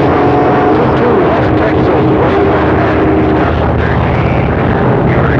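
Stryker CB radio receiving a crowded channel: a loud, steady rush of static with several held whistling tones and a few wavering ones, the squeal heard when several stations key up over each other. One of the tones drops out under a second in and the tones shift again past the middle.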